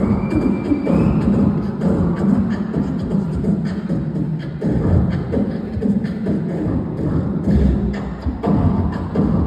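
Beatboxing into a handheld microphone cupped to the mouth: a continuous rhythmic stream of deep bass kicks and quick percussive mouth sounds, with a short rising whistle near the start.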